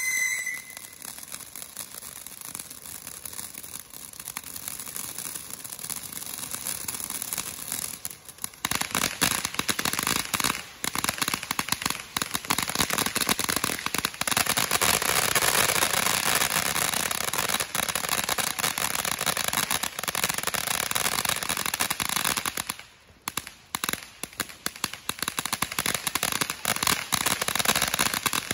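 Ground fountain firework spraying sparks, with a dense, continuous crackle. It gets louder about a third of the way in, dips briefly near the end, then picks up again before stopping.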